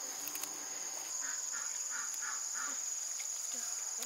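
Steady high-pitched insect chirring, typical of crickets. A little over a second in, a bird gives about five short calls in quick succession.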